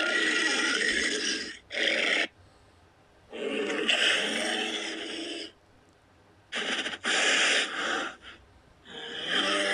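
Custom-made Godzilla-style monster growls: a string of noisy, rasping bursts of up to about two seconds each, separated by short gaps.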